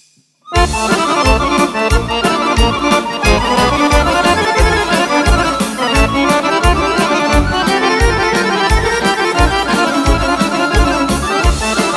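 Serbian folk band strikes up about half a second in, the accordion playing the lead melody of the instrumental intro over a steady kick-drum beat.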